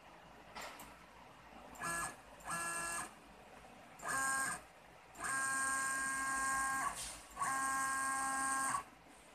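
Stepper motors of a High-Z S400 CNC router whining steadily as an axis is jogged, in five separate moves: three short ones in the first half, then two longer runs of about a second and a half each. Each move starts and stops abruptly.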